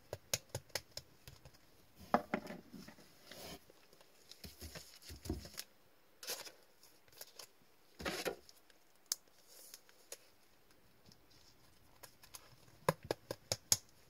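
Trading cards and rigid plastic top loaders being handled: a card is slipped into a top loader and set down, with many light clicks and a few short soft scraping rustles.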